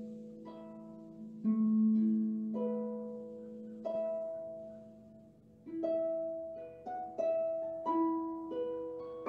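Solo concert harp playing slow, gentle music: single plucked notes and chords left to ring and fade, with a lull in the middle and notes coming more quickly near the end.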